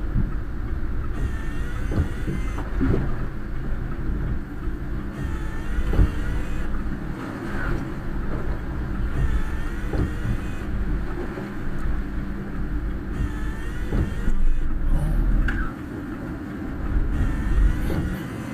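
Steady road and engine rumble inside a car driving through heavy typhoon rain, with faint squeaks recurring every couple of seconds and scattered light knocks.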